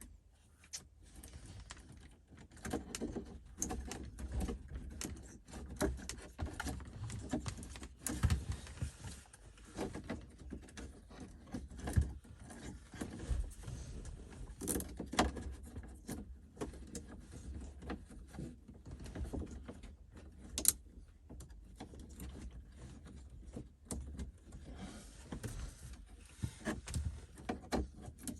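Irregular clicks, knocks and rattles of hands handling a car's radio unit and plastic centre-console trim, with a few sharper knocks spread through.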